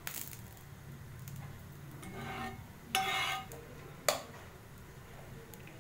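A spatula scraping and clinking on a non-stick tawa as oil is spread over it, in a few separate strokes, with a single sharp knock about four seconds in.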